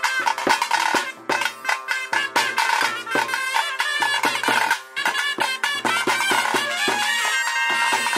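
Traditional ritual folk music: a reed wind instrument plays a sustained, wavering melody over rapid drumming.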